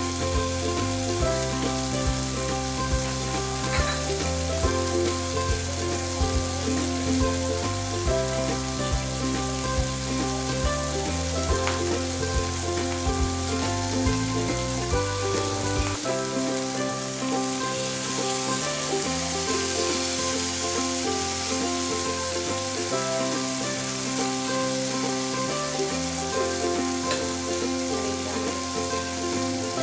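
Prawns frying in oil in a nonstick pan, a steady sizzle, under background music with a stepping bass line whose deepest notes drop away about halfway through.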